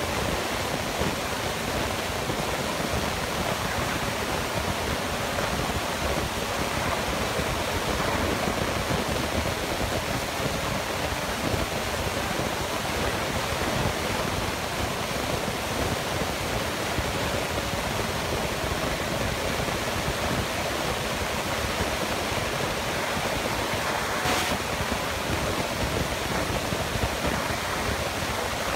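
Steady, even noise of an excavator's diesel engine and hydraulics running close by as its hydraulic shear works a scrap-metal pile, with one brief click about 24 seconds in.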